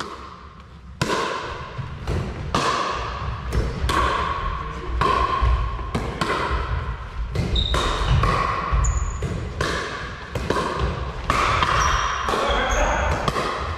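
Pickleball rally: paddles striking a hollow plastic ball and the ball bouncing on a wooden gym floor, sharp pocks about two a second, each ringing in the hall. A few brief high squeaks come in the last few seconds.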